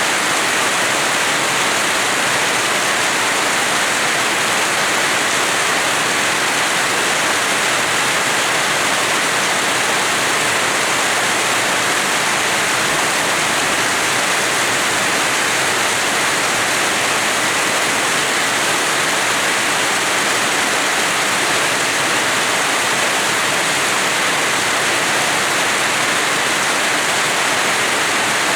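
Heavy rain falling steadily, a dense, even hiss with no single drops or changes standing out.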